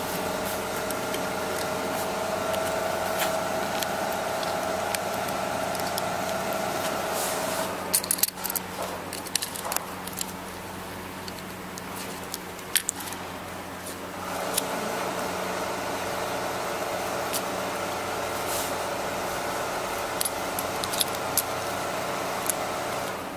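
Metal spring clamps on a sewing template clicking and snapping as they are pressed shut by hand, with light metallic rattles. A steady machine hum runs underneath, stops about eight seconds in and starts again about six seconds later.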